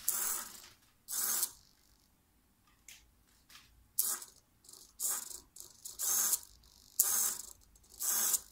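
Tower Pro 9 g micro servo buzzing in short bursts as its motor and plastic gears drive the horn to new positions, each move under half a second, most about a second apart, with a pause of a couple of seconds in the middle.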